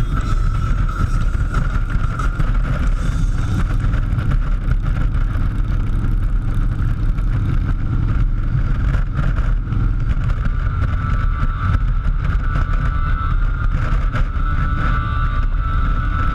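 A vehicle engine running steadily under a heavy, continuous low rumble.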